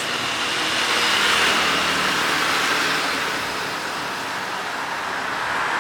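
Steady noise of a road vehicle running, with no sudden events.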